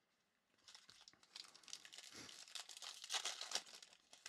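A foil trading-card pack being crinkled and torn open by hand. The crackling starts about half a second in and is loudest near the end.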